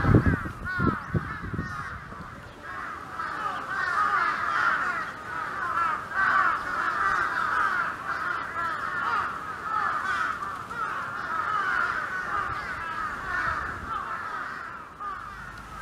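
A flock of birds calling all at once: a dense, unbroken chorus of short overlapping calls. There are a few low thumps in the first two seconds.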